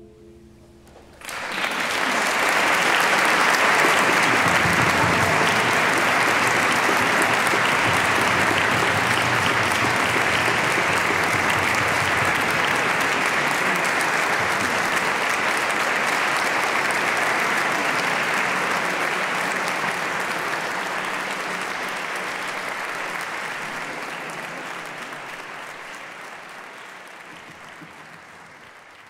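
Audience applauding at the end of the performance. The clapping breaks out suddenly about a second in, holds steady, then fades away over the last several seconds.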